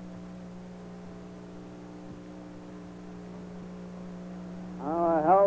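Steady electrical mains hum on old broadcast audio, a low even drone with fainter higher tones above it; a man's voice begins speaking near the end.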